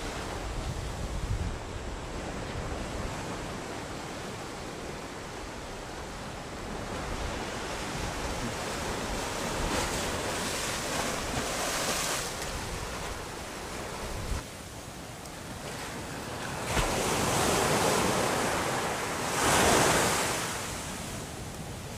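Sea surf washing onto a beach in repeated swells, the loudest near the end, with wind rumbling on the microphone.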